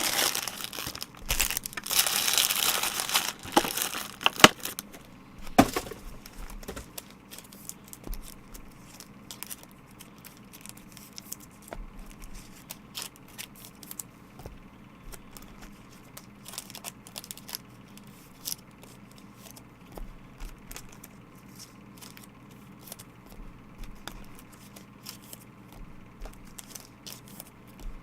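Plastic card wrappers crinkling and rustling for the first few seconds, then scattered light clicks and taps as trading cards are handled and stacked.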